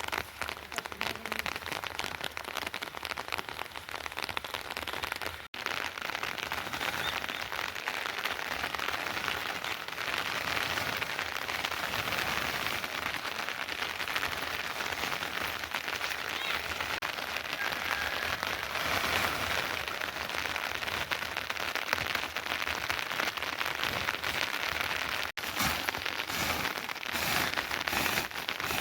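Steady rain falling, a dense patter with no single strokes standing out; it breaks off for an instant about five seconds in and again near the end.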